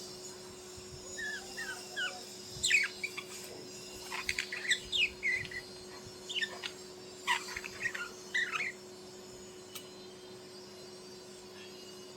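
Bird chirping: bursts of short, quick, high notes, many sweeping downward, for about eight seconds, then stopping. A steady low hum runs underneath.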